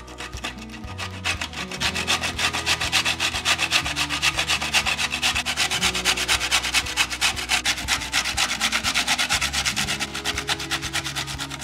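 Soft cooked broccoli florets rubbed down a stainless steel box grater, a quick rasping scrape at about four strokes a second.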